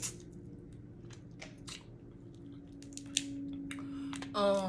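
Steamed blue crab being cracked and picked apart by hand and eaten: scattered sharp shell snaps and clicks, the sharpest right at the start, with chewing between them.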